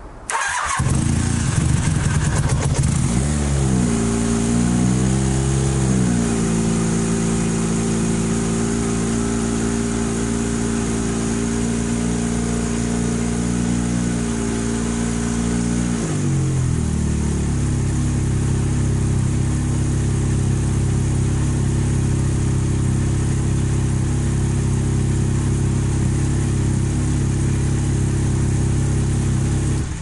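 Honda motorcycle engine starting up about half a second in, revved briefly, then idling steadily and settling to a lower idle about 16 seconds in. Its exhaust runs into a makeshift external silencer of aluminium flex duct.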